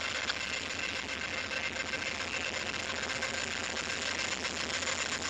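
Norfolk Southern GE AC44C6M diesel-electric locomotive and its trailing units running past at close range, a steady engine sound mixed with wind noise on the microphone.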